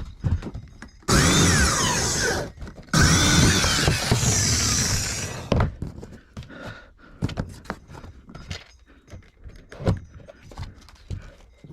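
Power drill driving screws into plywood in two runs of about one and a half and two and a half seconds, its pitch sliding as the motor loads and unloads. Scattered knocks and taps follow.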